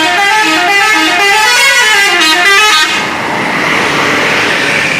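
Bus 'telolet' musical horn playing a quick tune of notes stepping up and down in pitch, cutting off about three seconds in; a loud even rushing noise follows.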